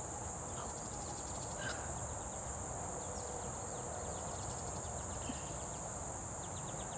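Insects trilling in one steady, high-pitched band over a low background hum, with a few faint rapid chirping series in the middle and near the end.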